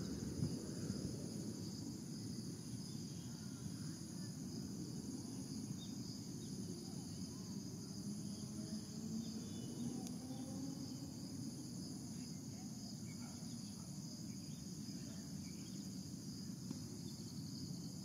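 Outdoor ambience: a steady, high-pitched chorus of singing insects, one part pulsing evenly, over a low steady rumble.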